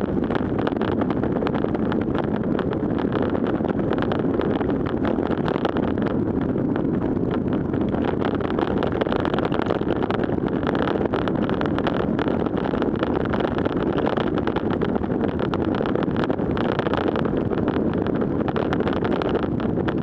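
Steady wind rush buffeting the microphone of a camera on a road bicycle riding at nearly 40 km/h, mixed with the hiss of its tyres on a wet road surface.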